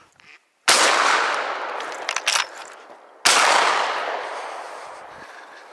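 Two shotgun shots about two and a half seconds apart, each with a long echoing tail, fired at a flying duck. A few sharp clicks come between the shots.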